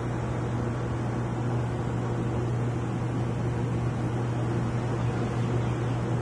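Aquarium air pump humming steadily, with a stream of fine bubbles from an air stone.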